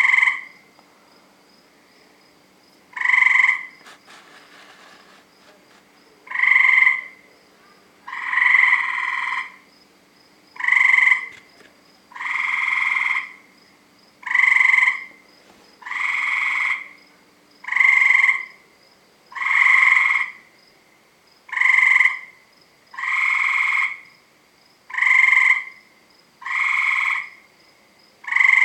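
Tree frog calling loudly over and over: a buzzy call about a second long, at first every two to three seconds, then steadily about every two seconds. A faint steady high-pitched sound runs behind it.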